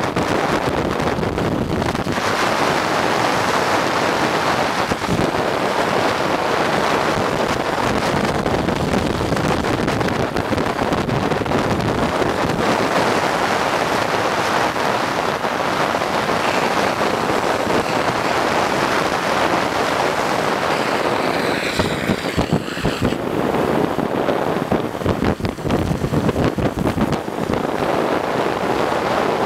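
Steady rush of wind on the microphone with road noise while following a downhill skateboarder at speed. About two-thirds of the way through, the rush turns choppy and uneven for a few seconds.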